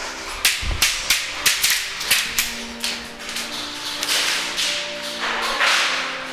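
Airsoft guns firing a quick string of single shots, about three a second, as sharp cracks, over background music.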